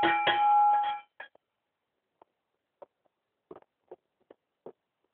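A bell rings for about a second with a second strike soon after the first, then a few faint, short knocks follow.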